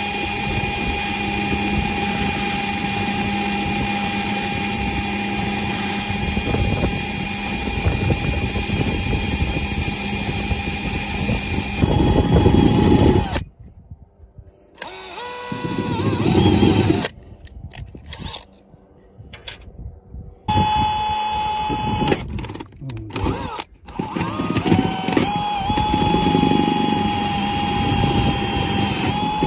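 Power drill with a twist bit boring holes in a narrowboat's steel roof: a steady motor whine that runs for about 13 seconds, stops, comes back briefly, then runs again through most of the last nine seconds with a few short breaks.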